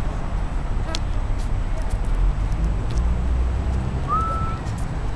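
Outdoor city background: a steady low rumble of street traffic, with a few faint clicks about a second in and one short whistle near the end that rises and then holds.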